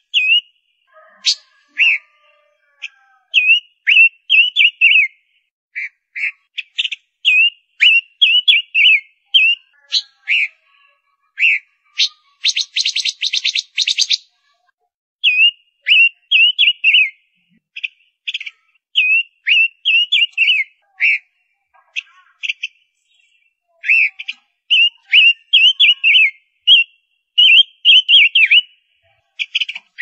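Female silver-eared mesia calling: clusters of short, high whistled notes that slur downward, with brief gaps between them. A fast, dry rattle of clicking notes comes about halfway through.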